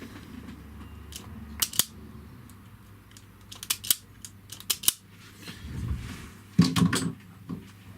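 Wire cutters snipping through electrical cable: a series of sharp snips and clicks, coming in small clusters, with the loudest group near the end.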